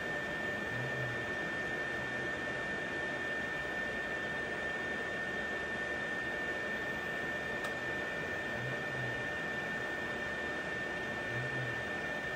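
Creality LD-006 resin 3D printer running mid-print: a steady hum with a constant high-pitched whine, and three brief low hums, about a second in, about nine seconds in and near the end.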